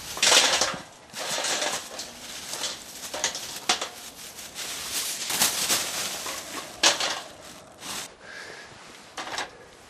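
Pine cones and twigs being tipped from a rustling bag into a metal fire stand, knocking and clattering against the steel, with a few sharp clicks.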